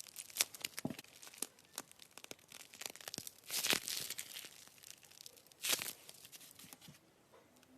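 Slime being squeezed and stretched by hand, giving a run of crackling, popping clicks with two louder crunchy bursts, about halfway through and near six seconds in, then settling down.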